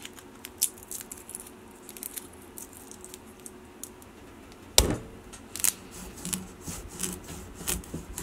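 Faint crackles and clicks of papery skins from roasted garlic bulbs as the cloves are peeled out by hand. About five seconds in there is a single sharp knock, then repeated dull knocks and scrapes of a kitchen knife working into the tough rind of a spaghetti squash on a wooden cutting board.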